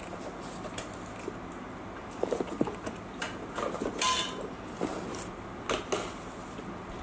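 Takeaway food packaging being handled and opened: a run of light clicks and knocks starting about two seconds in.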